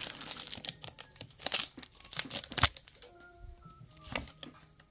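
Foil wrapper of a Pokémon TCG booster pack crinkling as it is torn open and the cards are slid out, with sharp crackles for the first couple of seconds, then softer rustling of the cards.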